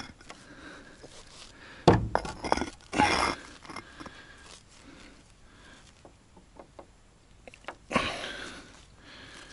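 Building materials and tools being handled during foundation work: a sharp knock with clattering about two seconds in, a short scraping rush a second later, another near the end, and small clinks and clicks in between.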